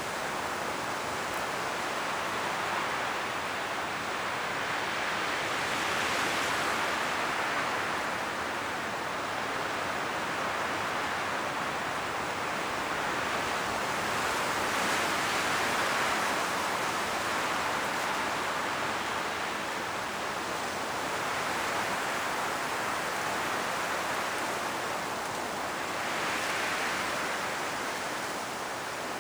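Wind rushing through autumn forest trees, the leaves rustling in a steady hiss that swells in gusts every several seconds, strongest about 6, 15 and 26 seconds in.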